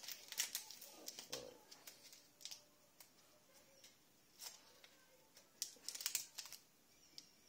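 Faint, scattered small clicks and crinkles of a plastic syringe, needle and wrappers being handled, with a cluster at the start, single clicks about 2.5 and 4.5 seconds in, and a quick run of them around 6 seconds.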